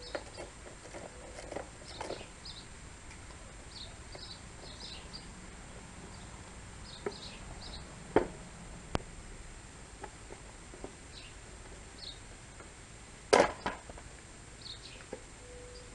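Clicks and knocks from a screwdriver and the plastic shroud being worked off a Porter-Cable oil-less pancake air compressor, with one loud knock about thirteen seconds in. Small birds chirp again and again in the background.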